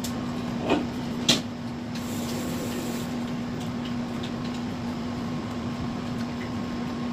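Steady low mechanical hum with room noise, broken about a second in by two short, sharp clicks, the second louder.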